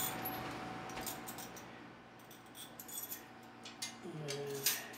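Light clicks and taps of a plastic bidet mounting plate and its rubber plugs being handled and set onto a porcelain toilet rim, scattered and irregular, coming more often in the second half.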